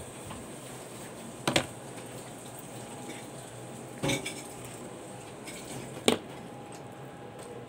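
Three sharp clinks of a kitchen knife knocking on the work surface, about two seconds apart, while a raw whole chicken is being cut and deboned, over faint steady room hiss.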